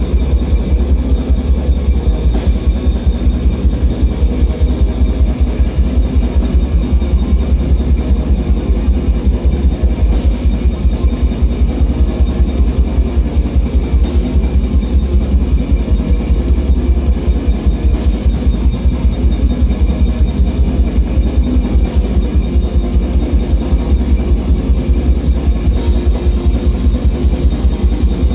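Live metal band playing loud and dense: distorted electric guitars over bass and rapid, steady drumming.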